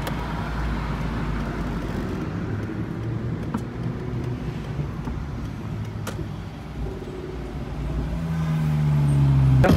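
Car driving in city traffic: steady engine and road noise, with a deeper engine note swelling louder over the last two seconds.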